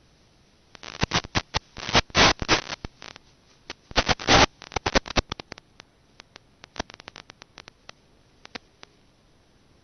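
Crackling static on the audio channel of an FPV video link that carries no microphone. Two dense bursts of sharp clicks, about a second in and around four seconds, then scattered single clicks.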